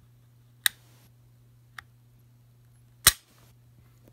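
Smith & Wesson M&P9 2.0 pistol being dry-fired: a sharp click as the striker-fired trigger breaks about half a second in, a faint trigger-reset click about a second later, then a louder metallic clack near the end.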